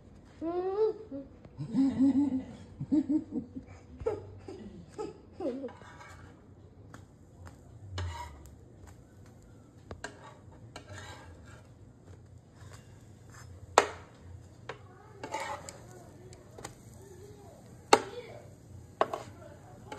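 A young child laughing and babbling in high, sliding squeals for the first few seconds, then scattered sharp clicks and knocks, two of them loud, later on.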